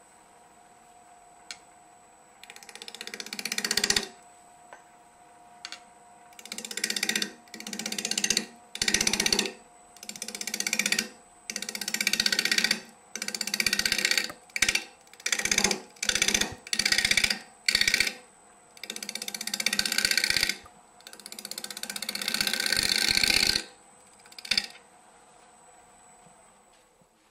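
Bowl gouge cutting a spinning Drake elm crotch blank on a wood lathe: about sixteen short cutting passes, each lasting a second or so, over the faint steady hum of the running lathe. The two longest passes come near the end.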